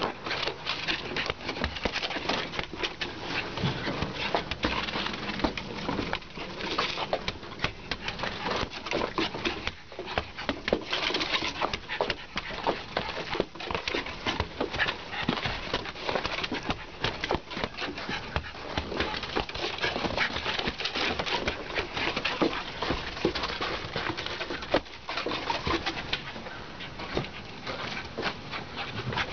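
Scottish terrier puppy playing with a ball in snow: low grunting and growling vocal sounds over a dense, continuous crackle of scuffling and clicks.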